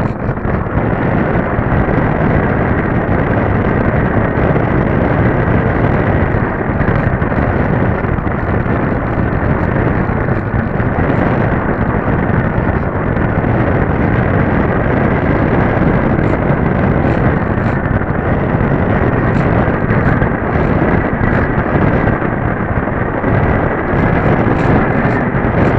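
Airflow and motor noise of a Dynam Hawk Sky electric RC plane in flight, picked up by its onboard camera: a loud, steady rush of wind over the microphone with little change in level.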